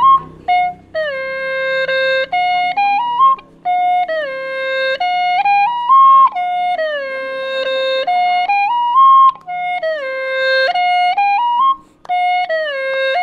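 A wind instrument playing a slow solo melody in phrases of held notes, sliding up and down between them with short breaks, over a faint low accompaniment. It is an instrumental passage between the sung lines of a song.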